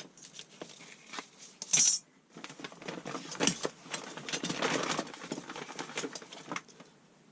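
Hand tools being handled and set down: light metal clicks, knocks and rustling, with one sharp clink just before two seconds in.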